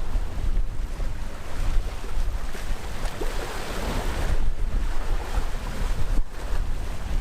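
Sea waves washing on the shore, one wave swelling and breaking about halfway through, with wind rumbling on the microphone.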